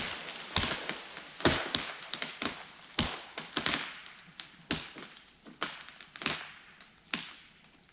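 Wood cracking and snapping in about a dozen sharp, irregular cracks that grow fainter: the fibres of a felled tree hung up in another tree giving way.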